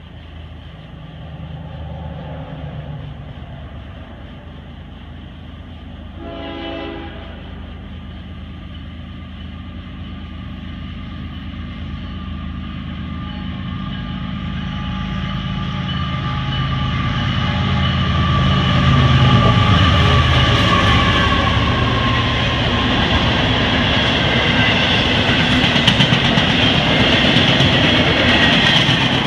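CSX freight train with two diesel locomotives approaching and passing close by. One short horn blast sounds about six seconds in. The engine rumble grows to its loudest about two-thirds of the way through as the locomotives go by, then gives way to the steady rolling noise of the freight cars on the rails.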